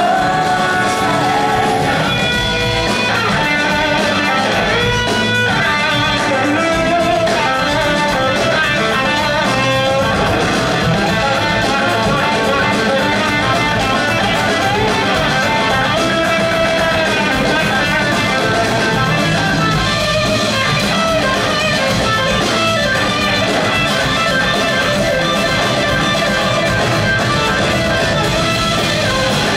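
Live blues-rock band playing an instrumental stretch with electric guitars to the fore over bass and drums.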